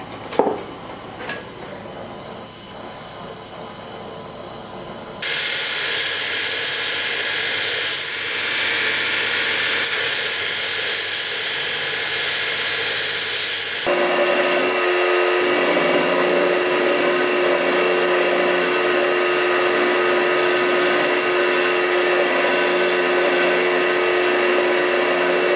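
A few light taps, then a power tool running loud from about five seconds in: first a harsh, even hiss, then about halfway through a steadier machine sound with several held whining tones over the noise.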